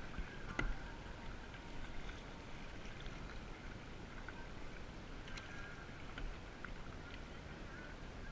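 Kayak paddling in calm shallow water: soft paddle splashes and drips over a steady hiss of water and wind, with a few faint clicks from the paddle.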